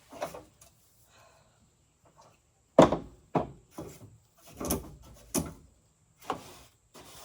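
A run of sharp knocks and clunks, like wood being set down or bumped. The first and loudest comes almost three seconds in, followed by about four more over the next three and a half seconds.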